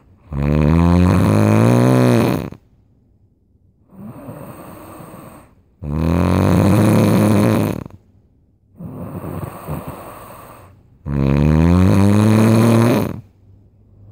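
Loud snoring from a sleeper: three long snores about five seconds apart, each about two seconds, rising in pitch as it goes, with quieter breaths between them.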